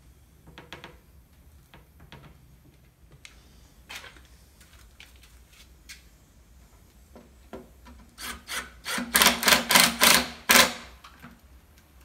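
Cordless drill driving screws into oak plywood, with faint knocks and handling at first, then a quick run of loud, short bursts about four or five a second near the end.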